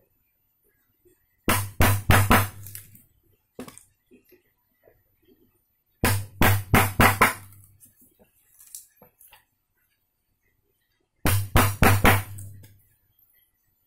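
A Tekiro wood chisel being struck to drive it into a wooden board: three quick runs of about five sharp knocks each, with a single knock in between.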